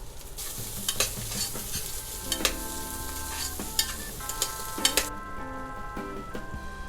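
Food sizzling and crackling in a hot pan over background music; the sizzle cuts off suddenly about five seconds in.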